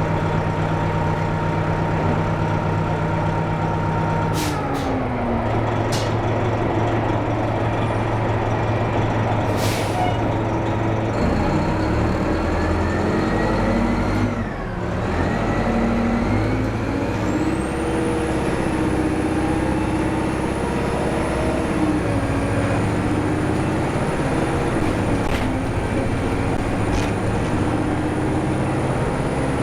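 Diesel engine of a NABI 436 transit bus pulling hard through its gears: the engine note climbs, then drops at a shift twice. About halfway through, a high turbocharger whistle comes in, rises and holds steady. Short sharp hisses of air are heard a few times.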